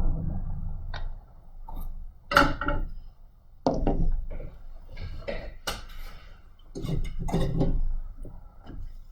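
Irregular clinks, taps and rustles of small metal tools and parts being handled on a repair bench, after a steady hiss of blowing air dies away about a second in.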